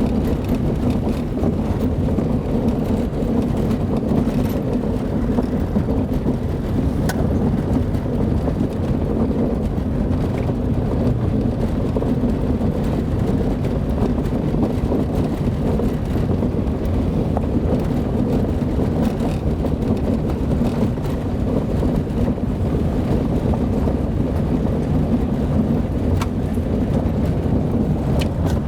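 Car driving on a dirt road: a steady low rumble of engine and tyres, with a few faint clicks.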